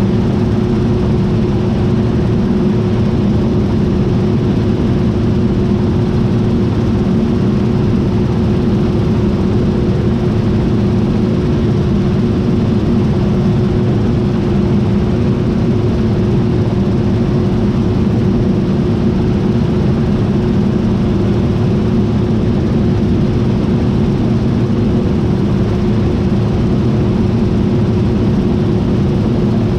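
John Deere T660i combine harvester running steadily: a loud, even mechanical drone with a constant whine over it, unchanging throughout.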